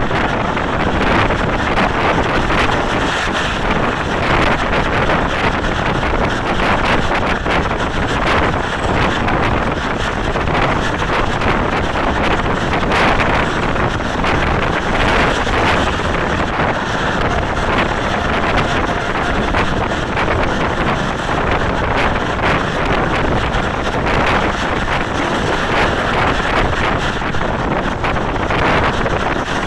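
Steady wind buffeting the microphone over the running noise of a passenger train at speed, heard from the side of a moving coach.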